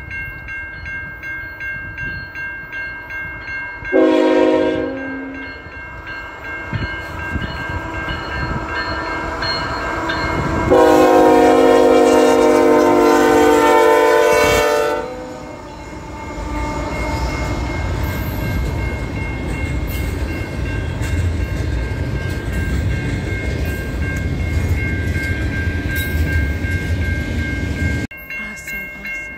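A CN freight locomotive's air horn sounds a chord of several tones: a short blast about four seconds in, then a long blast of about four seconds, over the steady ringing of a level-crossing bell. The train then rumbles past over the crossing with a rhythmic clickety-clack of wheels on rail joints.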